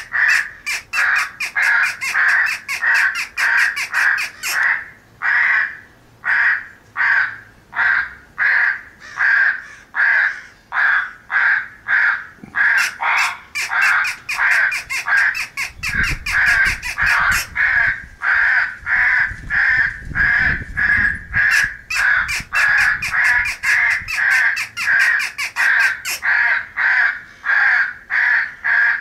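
A group of crows cawing without a break, about two harsh caws a second, some overlapping: the calls of crows gathered at food, as recorded for an electronic game caller.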